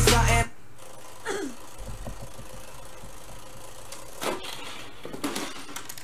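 Music cuts off about half a second in. After it comes the low steady mechanical rattle of a Perfection game's wind-up timer running, and at about four seconds a sharp clack as the spring-loaded board pops up and throws out the pieces, followed by a few lighter clatters.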